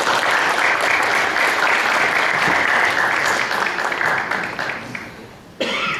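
Congregation applauding, the clapping thinning out and fading away about five seconds in, followed by a short, loud burst of sound just before the end.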